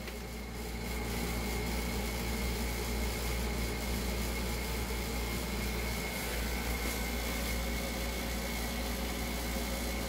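Steady low machine hum with a thin, steady high-pitched whine over it, a little louder after about a second.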